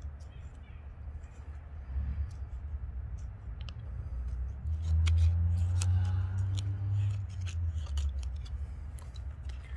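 Scandi-ground Mora knife blade shaving thin curls down a dry stick while a feather stick is carved, a series of short scraping strokes. A low rumble swells through the middle.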